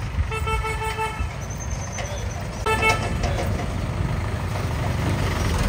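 A vehicle horn toots twice, a longer toot then a short one, over the low rumble of a diesel tractor engine that grows louder as the tractor approaches.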